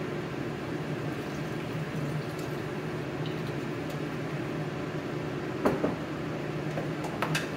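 Water boiling in a wide stir-fry pan on a gas burner: steady bubbling and hiss over a low steady hum, with a few sharp clicks near the end.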